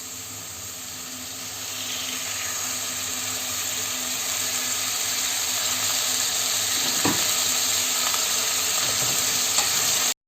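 Chopped leeks sizzling in hot oil in a pot as they are sautéed, a steady hiss that grows louder about two seconds in. A couple of faint knocks sound partway through, and the sound cuts off abruptly near the end.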